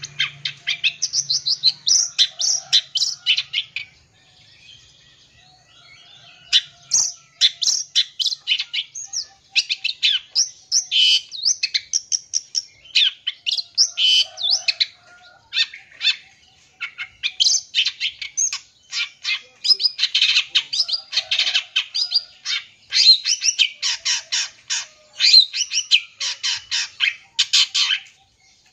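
Long-tailed shrike (cendet) song in the 'full isian' style: a fast, loud run of harsh chattering notes mixed with mimicked calls of other birds, broken by a short lull about four seconds in.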